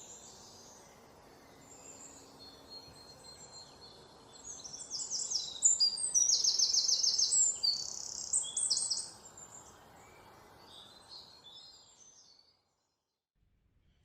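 Wild songbirds chirping and singing high-pitched notes, loudest in the middle where one bird gives a rapid trill of about ten notes a second, over a soft background hiss. The sound cuts out suddenly near the end, then a faint hiss returns.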